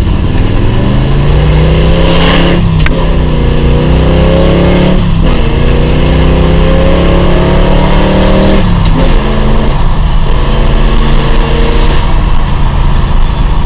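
Chevrolet Chevelle engine and exhaust heard from inside the cabin, pulling through the gears. The pitch climbs, drops at an upshift about three seconds in, climbs again, and shifts again around five and nine seconds in. It then runs at a steady pitch while cruising.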